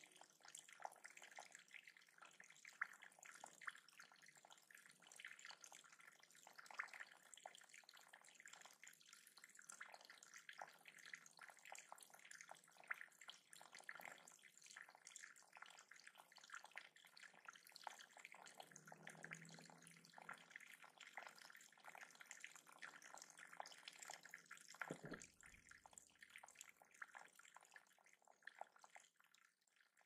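Faint water trickling over a small rock ledge and splashing into a shallow rocky pool: a steady, irregular patter of drips and splashes.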